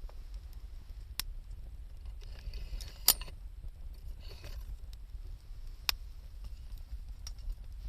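Wood fire burning with a low steady rumble and a few sharp crackling pops, the loudest about three seconds in, with brief hissing between them.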